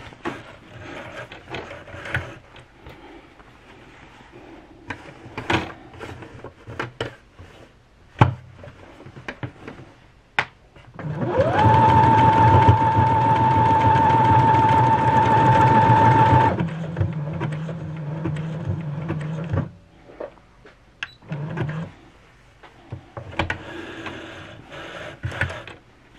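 Brother XR9550 computerized sewing machine stitching programmed alphabet lettering. About eleven seconds in, its motor speeds up to a steady high whine for about five seconds, then runs lower and quieter for about three more seconds before stopping. Scattered clicks and handling noises come before and after.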